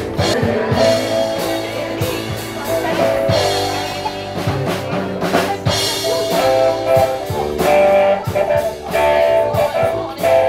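Live band playing rock music: electric guitar over a drum kit, with steady drum strokes under sustained guitar notes.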